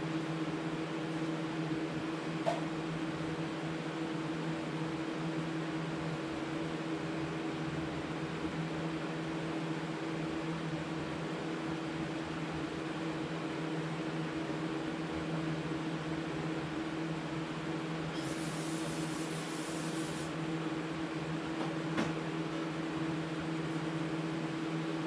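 A steady machine hum throughout, with a short hiss of aerosol carburetor cleaner sprayed into a funnel about 18 seconds in, lasting about two seconds. A few faint clicks.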